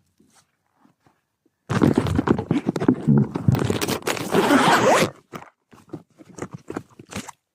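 Loud scraping and rustling of gear handled right at the microphone, starting about two seconds in and lasting about three and a half seconds, then a few short scrapes and clicks.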